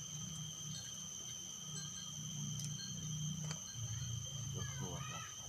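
Insects droning in a steady high continuous tone, over a low uneven rumble.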